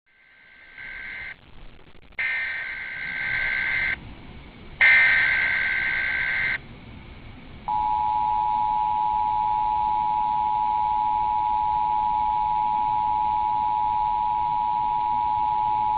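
Emergency Alert System test tones. First come three buzzing bursts of the digital header data, a rapid two-pitch squawk, within the first seven seconds. Then the EAS attention signal, a steady two-tone chord, starts about eight seconds in and holds for about eight seconds.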